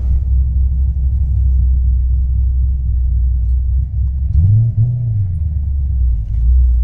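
Cammed 6.0-litre LS2 V8 of a Pontiac GTO, heard from inside the cabin, rumbling steadily at low speed. About four seconds in, the engine pitch briefly rises and falls.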